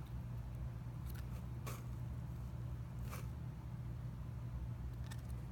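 Faint handling of trading cards: a few soft slides and scrapes of card stock being shuffled, over a steady low hum.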